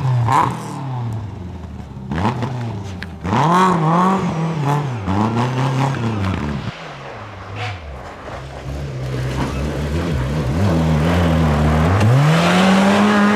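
Rally car engines on a snow stage: a Lada saloon's engine revs up and down again and again as the throttle is lifted and gears change. Near the end a Honda Civic hatchback rally car comes in with its engine climbing to high revs and held there.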